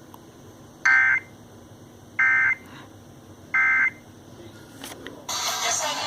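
Emergency Alert System end-of-message code: three short, identical warbling digital data bursts, evenly spaced about a second and a half apart, which mark the close of the tornado warning broadcast. Music starts about five seconds in.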